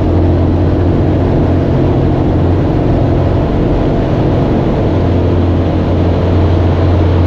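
UL Power UL350i four-cylinder aircraft engine of a Zenith CH 650 running at high takeoff power, a steady loud drone with a strong low hum.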